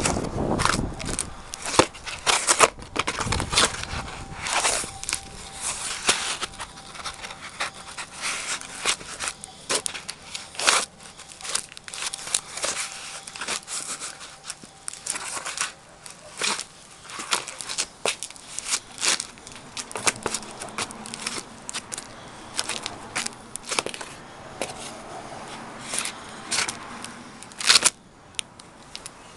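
An old cardboard postal box crunching, crackling and tearing as Allen Edmonds McAllister wingtip shoes stomp on it and grind it flat. The crunches come irregularly, thickest in the first few seconds, with one loud crunch near the end.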